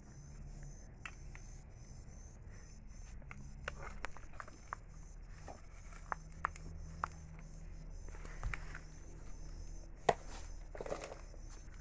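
Sticks being handled and footsteps shuffling beside a wood fire: scattered light clicks and knocks, with one sharper knock about ten seconds in.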